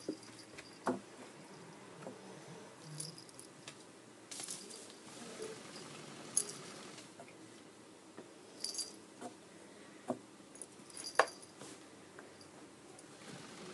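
A cat moving about on a corrugated cardboard scratcher: faint scattered taps and rustles, with a few brief light metallic jingles a couple of seconds apart.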